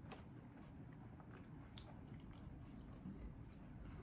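Faint close-up chewing of a person eating lobster with his mouth closed, with a few soft wet clicks.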